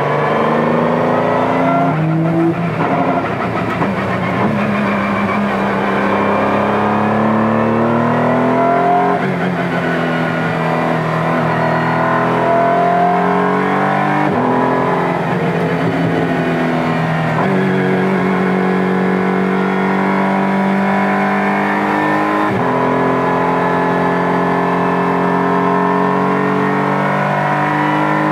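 Honda NSX GT3's twin-turbo V6 at racing speed, heard from inside the cockpit. The pitch climbs through each gear and steps down at every gearshift, with downshifts under braking into second gear near the middle and upshifts again after.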